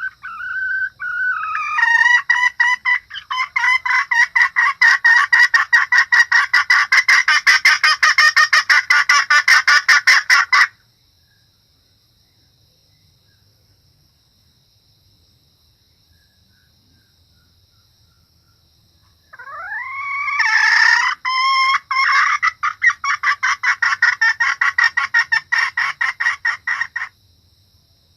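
Red junglefowl hen calling in two long runs of rapid, evenly repeated clucking notes, each opening with a rising note, with about eight seconds of near quiet between them. A faint steady high tone runs underneath.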